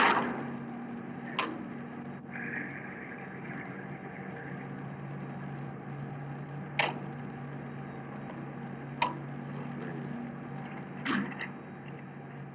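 Steady low hum under an even hiss, broken by a few short sharp clicks spread through.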